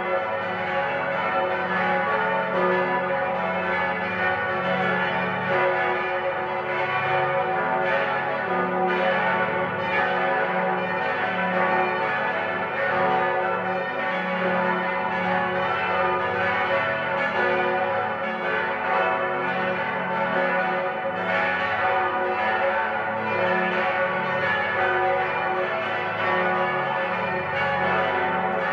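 Full peal of eight swinging church bells tuned F♯, A, C♯, E, F♯, G♯, A, B, all ringing together with no pause. Their overlapping strikes form a dense, steady wash of bell tones.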